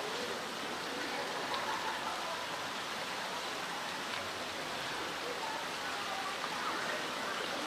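Steady rush of running water, even and unbroken, with faint voices in the background.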